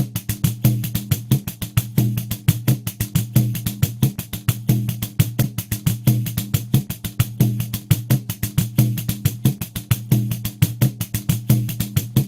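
Pandeiro playing a steady samba groove at 90 beats per minute: a fast, even stream of jingle strokes over deeper tones from the drum head.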